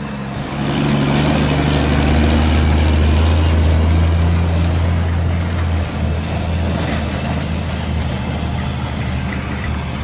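Diesel engine of a 1973 Kenworth logging truck running, a deep steady drone that grows louder about a second in and holds there.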